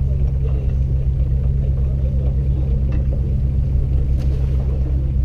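Off-road 4x4's engine running low and steady as the vehicle crawls over a rocky trail, with a faint knock about four seconds in.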